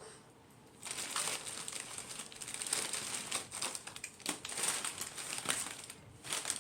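A crinkly plastic chip bag being handled and crumpled, an irregular crackling that starts about a second in.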